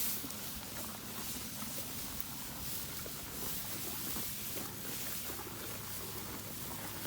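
Cattle eating hay: a continuous crackle of chewing and rustling dry stalks, over a faint steady low hum.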